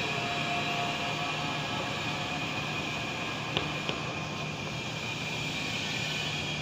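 Chalk scratching on a blackboard as a word is written, over a steady low hum, with two light taps of the chalk a little past halfway.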